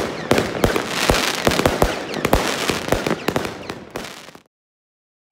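Fireworks and firecrackers going off all around: many overlapping bangs over continuous crackling. It cuts off abruptly about four and a half seconds in.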